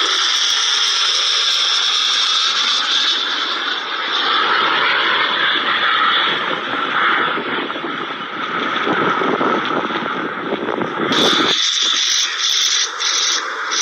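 Lockheed Martin F-35 Lightning fighter jet passing fast and low: a loud, sustained rushing roar from its single engine. About eleven seconds in it cuts off abruptly and gives way to a choppier noise.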